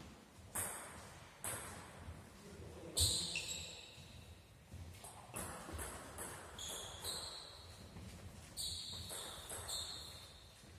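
Table tennis balls bouncing and clicking in a reverberant sports hall: irregular knocks and pings, about a dozen in all, several with a short high ring.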